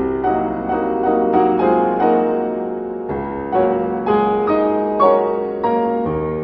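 Background piano music: a slow series of single notes over held lower notes, each note starting sharply and fading.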